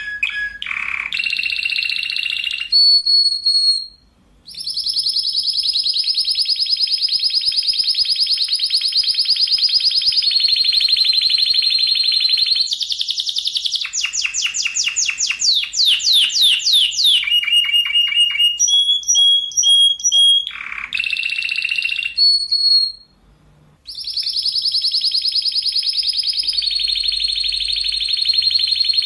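Spanish Timbrado canary singing: long, fast, tight rolls held for several seconds at a time, broken by a run of falling trills and short repeated notes. The song stops twice, briefly.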